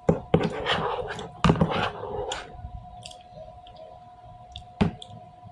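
Close-up eating sounds: chewing and handling food, with several sharp clicks, for the first couple of seconds, then a faint steady hum with a single sharp click near the end.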